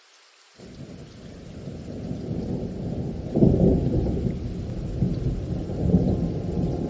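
A long, low roll of thunder over light rain. It sets in suddenly about half a second in, builds to its loudest a little past the middle, then rolls on with further swells.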